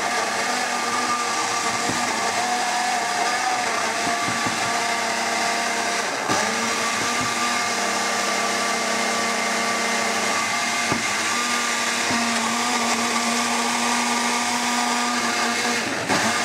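Personal cup blender running continuously with a steady motor whine, blending raw broccoli, blueberries, yogurt and milk into a smoothie. The sound dips briefly about six seconds in and again near the end.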